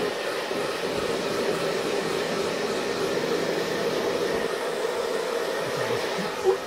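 Handheld hair dryer running steadily, blowing warm air over a wet cat's fur. A brief louder sound comes near the end.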